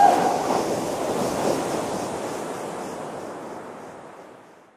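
Rushing, surf-like wash of noise, like a wave running up and fading, that dies away steadily over about four and a half seconds. A held tone cuts off right at the start.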